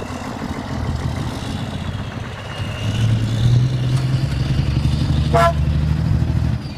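A motor vehicle's engine running steadily, growing louder about three seconds in. There is one short horn toot about five and a half seconds in.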